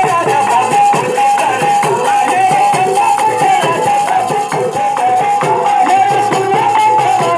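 Harmonium playing a stepping melody over a steady dholak beat: the instrumental accompaniment between verses of a devotional kalam, with no voice singing.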